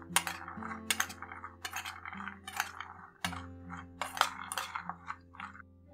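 A metal spoon clinking and scraping against a stainless steel bowl in quick, irregular strokes as sprouted chickpeas are tossed and mixed, over soft background music. The clinking stops just before the end.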